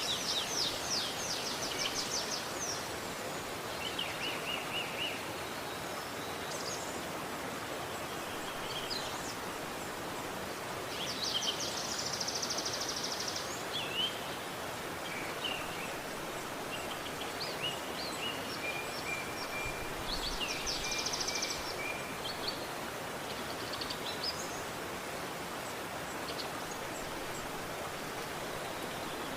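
Steady rushing of a river, with birds chirping and trilling over it on and off, in a few short bursts of rapid trills.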